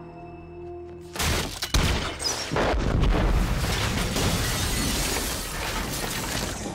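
A large explosion from a fired grenade goes off suddenly about a second in, with a sharp crack just after. Shattering and flying debris follow, with a loud rumble that carries on for several seconds.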